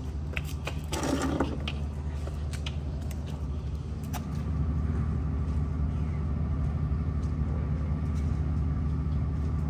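Steady low mechanical hum, like an engine heard inside a vehicle, getting louder about halfway through, with a short rustle about a second in and a few faint clicks.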